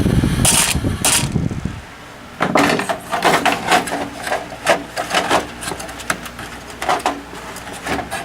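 Hands working inside a desktop PC case: a low rumble for about the first two seconds, then irregular knocks, scrapes and clicks of metal and plastic parts being handled while a graphics card is fitted.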